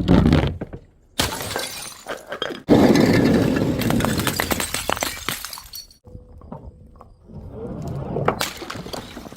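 Glass bottles smashing: several sudden crashes, each followed by the clatter and tinkle of breaking shards, the loudest about three seconds in with a long trail of clattering.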